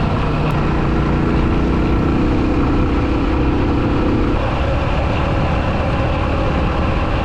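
Rusi Classic motorcycle engine running steadily while riding, with a change in the engine note about four seconds in.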